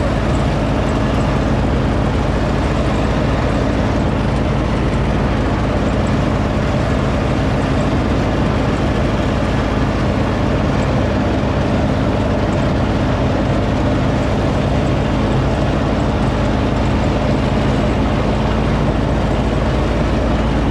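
John Deere riding lawn tractor's engine running steadily at a constant speed while mowing, with the cutting deck and grass collector running.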